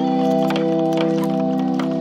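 Background music: a sustained organ chord held steady, with faint light ticks over it.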